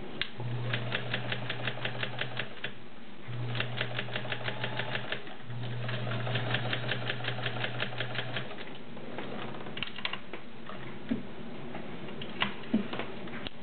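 Kenmore 1601 all-metal sewing machine, with its 1.2 amp motor, stitching through three layers of garment leather in three runs of about two to three seconds each. The needle clicks about six times a second over a steady motor hum. It stops about two-thirds of the way in, followed by a few light clicks.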